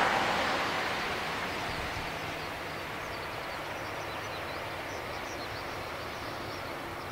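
Airbus A340-300's four CFM56 jet engines running at idle: a steady, even noise, louder at first and easing over the first two seconds.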